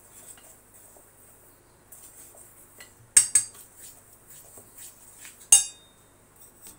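Blue plastic spoon stirring dry gram-flour mix in a stainless steel bowl: faint scraping, then two sharp clinks against the steel bowl about halfway through and a louder clink with a brief ring near the end.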